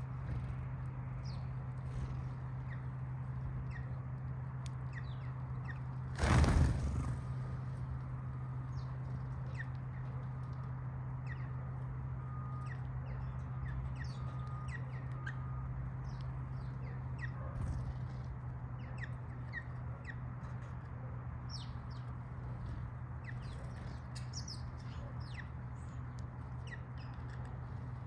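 House sparrows chirping in short, scattered calls as they feed, over a steady low hum. A brief loud rush of noise cuts across about six seconds in.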